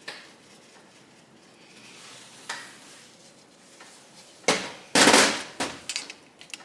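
Metal tools and engine parts being handled. A single click about two and a half seconds in, then a sharp clank and a brief loud metallic rattle near the five-second mark, followed by a few lighter clinks.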